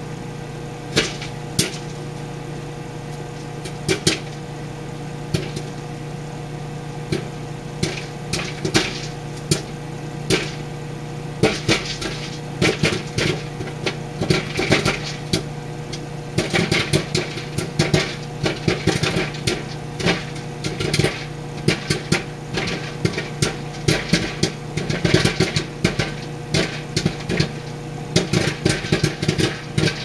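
Loose popcorn kernels popping in a paper-plate-covered bowl inside a running 1100-watt microwave oven, over the oven's steady hum. Scattered single pops in the first seconds build into rapid, dense popping from about eleven seconds in.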